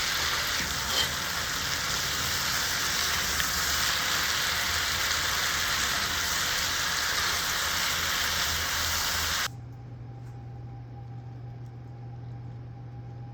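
Spicy stir-fried pork (jeyukbokkeum) sizzling in a frying pan, a steady dense hiss that cuts off suddenly about nine and a half seconds in. After that only a quiet, steady low hum remains.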